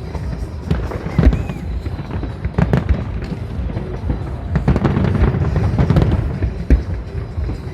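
Fireworks going off in a rapid string of bangs and crackles, with a denser barrage of low crackling about five seconds in, while music plays underneath.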